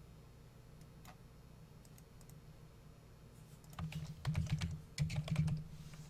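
A short run of keystrokes on a computer keyboard about four seconds in, after a single faint click about a second in.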